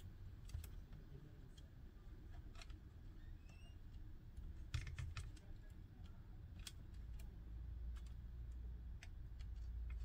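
Faint, scattered small clicks and handling noise from fingers fitting tiny antenna cable connectors onto a module on a 5G router's circuit board.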